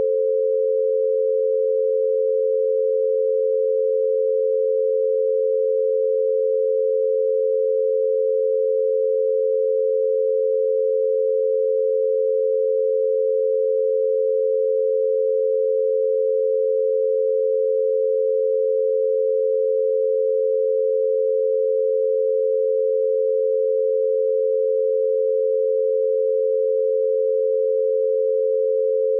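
Two steady pure tones a little apart in pitch, held without any change: an 88 Hz binaural beat, with each tone meant for one ear through headphones.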